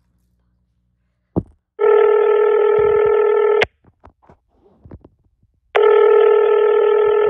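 A telephone ringing: two rings of about two seconds each, a couple of seconds apart, each starting and stopping sharply, after a short click. It is the sound of a call going through.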